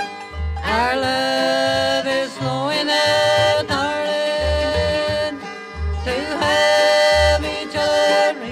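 Bluegrass band instrumental break: a fiddle plays long held notes that slide up into pitch, over a steady upright-bass pulse and banjo and guitar backing.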